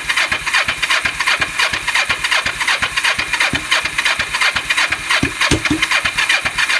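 Kawasaki EX500 (Ninja 500) parallel-twin engine cranking on its electric starter with full choke, turning over in even pulses without yet catching.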